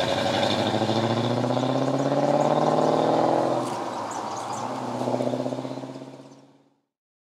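Car engine accelerating away hard, its pitch climbing until a gear change drops it about three and a half seconds in, then climbing again before the sound fades out.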